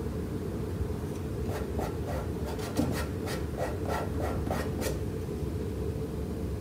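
A paintbrush laying acrylic paint onto the painting surface: a run of about a dozen short strokes, about three a second, from about one and a half seconds in to nearly five seconds in. A steady low hum runs underneath.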